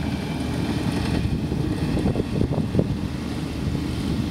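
Storm wind buffeting the microphone with a low, fluttering rumble, over the steady running of a distant Komatsu crawler dozer's diesel engine as it pushes ash.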